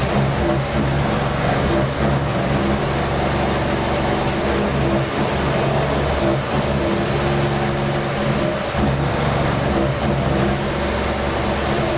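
AKKO high-feed milling cutter cutting metal on a milling machine: a continuous hiss under a pitched machine hum whose tones break off and come back every second or two.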